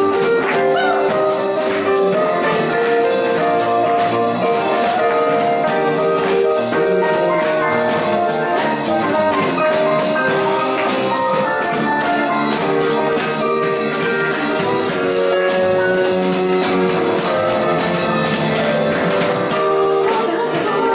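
Live band playing an instrumental passage of a pop song without singing. Keyboard notes and chords are held and change in steps, over acoustic guitar and drums.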